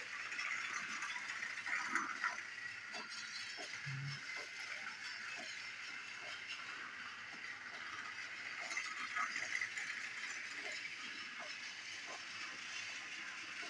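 Battery-powered toy train, a Toby the tram engine model pulling a coach, whirring steadily along plastic track, with scattered small clicks and rattles as it runs.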